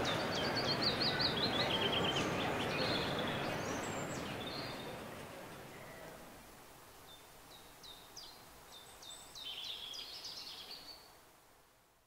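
Birdsong sound effect: many short high chirps and trills over the last of a crowd's applause, which dies away by about halfway. A few more bursts of chirping follow before the birdsong fades out at the end.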